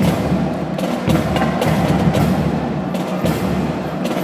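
Marching drum band's percussion section playing a fast rhythm of sharp drum strokes with deep bass-drum beats underneath, in a large indoor sports hall.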